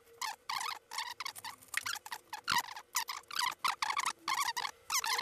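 Flush-cutting pliers crunching and snapping away the white plastic housing of a USB-C cable plug: a rapid series of short, crackling, squeaky bites, about two or three a second.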